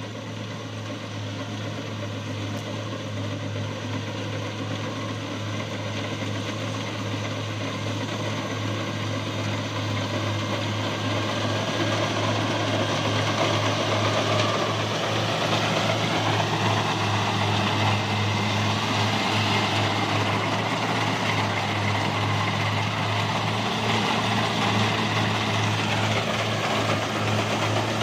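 Kubota rice combine harvester running steadily, its engine drone mixed with the clatter of the harvesting machinery, growing louder over the first dozen seconds and then holding steady.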